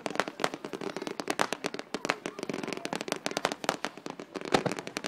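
Fireworks going off in quick succession: a dense, irregular string of sharp cracks and bangs, several a second, with one louder bang near the end.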